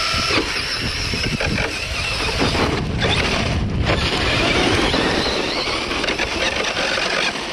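Traxxas Slash RC truck with a broken drivetrain, trying to drive on two-wheel drive. Its motor whine cuts off about half a second in, giving way to a rough, uneven grinding and scrabbling noise that sounds like crud.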